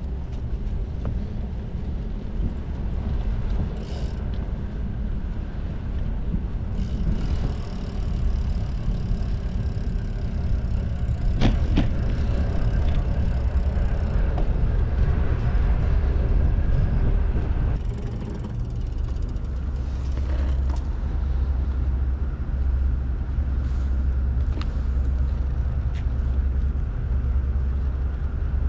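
Wind buffeting the action camera's microphone while a bicycle rides over paving, a steady low rumble with a sharp knock partway through.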